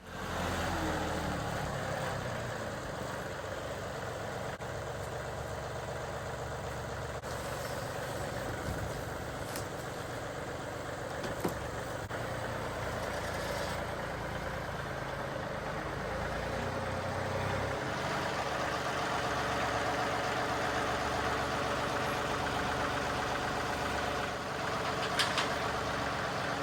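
An engine idling steadily, with a few faint clicks near the end.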